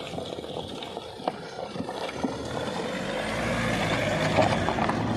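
Mahindra Scorpio SUV driving slowly over a loose-stone track, its engine running and its tyres crunching over rocks, with scattered sharp stone clicks. It grows louder as it comes alongside and is loudest about four seconds in.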